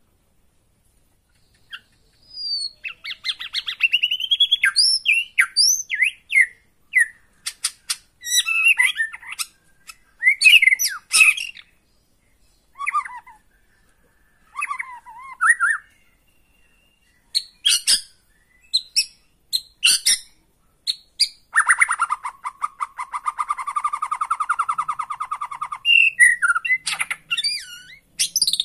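White-rumped shama singing: a varied run of short whistled phrases and chattering notes with brief pauses between them. About three-quarters of the way through comes a long, fast rattling trill lasting about four seconds, followed by more short whistles.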